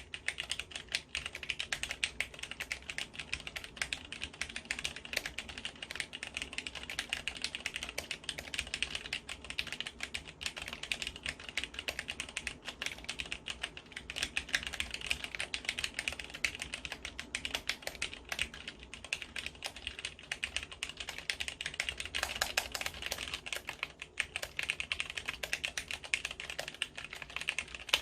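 Typing on a Cherry MX Board 3.0S mechanical keyboard with Cherry MX Red linear switches and no steel mounting plate: a steady, unbroken stream of keystroke clicks and keycap clacks.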